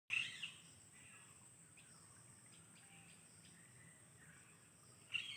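Birds chirping outdoors, a cluster of calls at the start and another near the end with a few faint chirps between, over a faint steady high-pitched drone.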